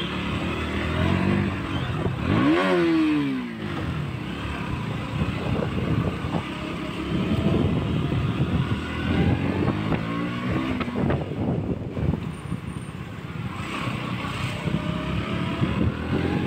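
KTM Duke 200's single-cylinder engine running under way, its pitch rising and falling twice as the throttle is opened and eased off, about two and a half seconds in and again about nine seconds in.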